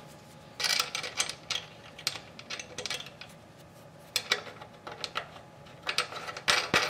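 Small metal clicks and clinks in several short clusters as a steel safety washer and axle nut are fitted by hand onto a scooter's front wheel axle.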